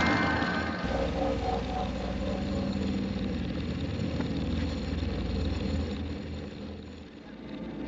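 Horror film score played in reverse: a low rumbling drone with faint sustained tones above it, dying down near the end and then swelling again.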